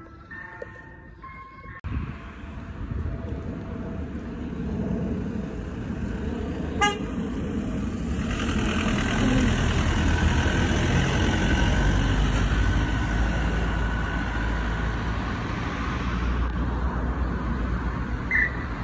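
Ice cream van driving past close by, its engine and road noise building up after its chime tune cuts off about two seconds in. There is one brief sharp sound about seven seconds in.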